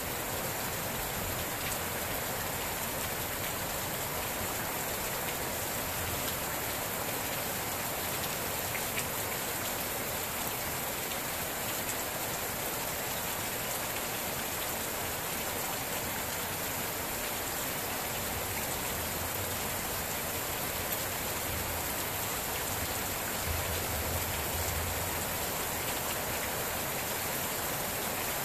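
Steady rain falling, an even unbroken hiss of many drops.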